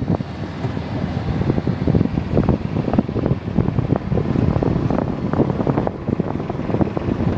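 Wind buffeting the microphone from a moving golf cart, with the cart's running rumble underneath; a steady, gusty roar.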